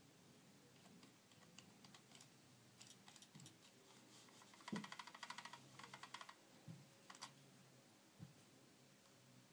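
Faint clicks of a Bluetooth computer mouse in use: scattered single clicks, then a quick run of clicks about halfway through that starts with a low knock, and a few more lone clicks after it.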